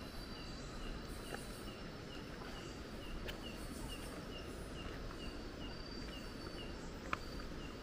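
Night forest ambience: a short chirping call repeated steadily about three times a second over a thin, steady high insect hum and a low rushing background. A few sharp clicks sound about a second in, in the middle and near the end.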